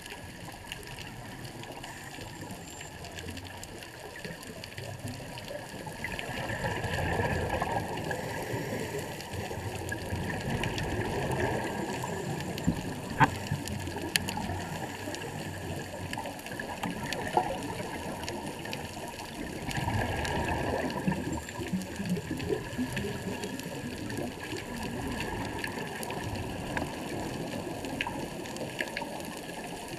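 Underwater rushing and bubbling picked up by a camera on a reef dive, swelling louder for a few seconds at a time, with scattered sharp clicks.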